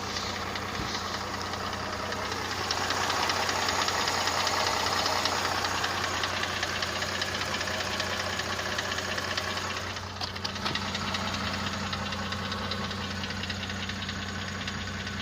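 Mercedes-Benz CLS 350 V6 engine running with a fast, steady knocking from the bottom end, getting a little louder for a few seconds early on. The knock is taken for piston knock, a worn piston and cylinder group.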